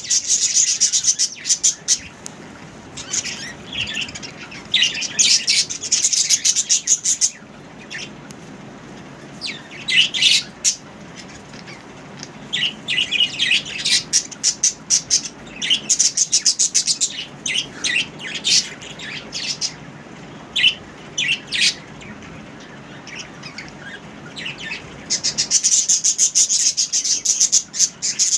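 Budgies chattering: rapid high-pitched chirps in dense bursts, with quieter stretches of scattered chirps between.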